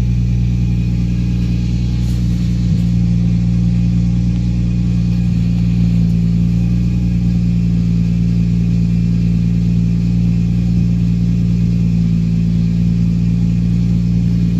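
Nissan 350Z's VQ35 V6 idling steadily while warming up. It runs smoothly, with no misfire that the owner can hear.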